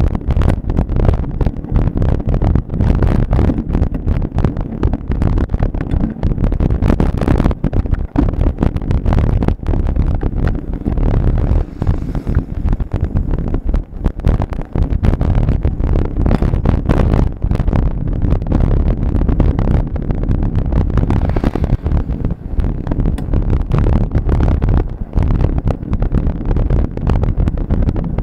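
Wind buffeting the microphone of a camera riding along on a moving bicycle: a loud, steady low rumble that flutters constantly.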